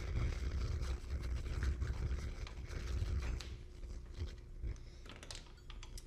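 Hex key turning the kickstand mounting bolts on an e-bike's aluminium frame, loosening them: faint metal scrapes and small clicks over low handling rumble, with a few sharper ticks near the end.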